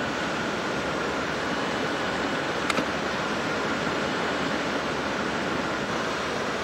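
Steady rushing outdoor roadside noise, with a single sharp click a little under three seconds in.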